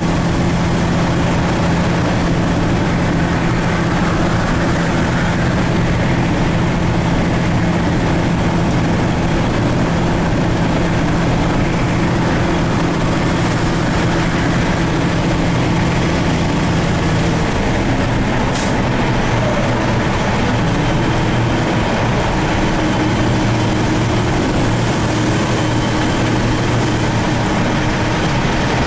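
Truck's engine and road noise inside the cab at highway speed, a loud steady drone. About two-thirds of the way through, the engine note changes, and there is a brief high hiss or click just after.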